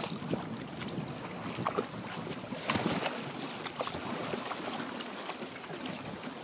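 Choppy water splashing and slapping against a sea kayak's hull and paddle blades as it is paddled through rough, broken water, with wind buffeting the microphone. The splashes are loudest about two and a half to four seconds in.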